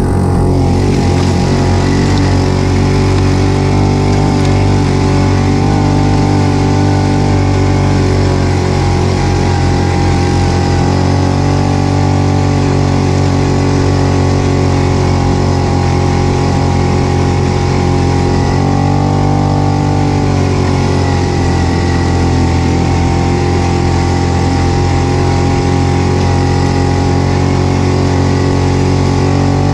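ATV engine running steadily under way on a rough dirt track, heard close from the machine itself, with a brief shift in engine pitch about twenty seconds in.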